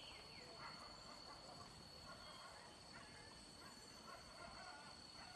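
Near silence: faint, distant animal calls, short and bending in pitch, scattered over a steady thin high tone.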